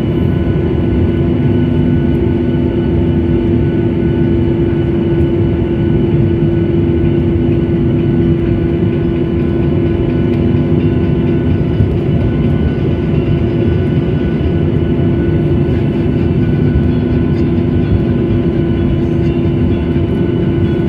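Steady engine noise of an airliner heard from inside the cabin, a constant rushing roar with a steady hum through it and a lower drone that fades in and out.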